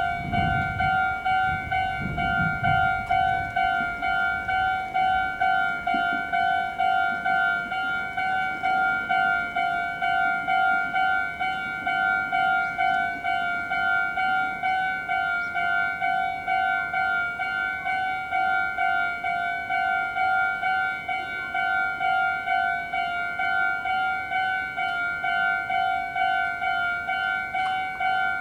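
Electronic warning bell of a Meitetsu Inuyama Line level crossing, sounding an even, repeating two-pitched ding that warns a train is approaching. A low rumble is heard in the first few seconds.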